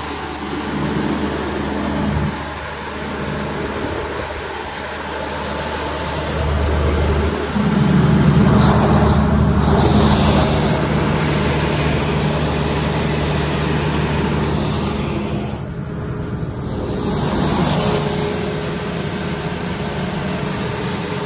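Perkins diesel engine of an FG Wilson XD250P1 275 kVA silent generator set running at a steady, constant speed, with an even low hum that stays on one pitch and shifts only slightly in loudness.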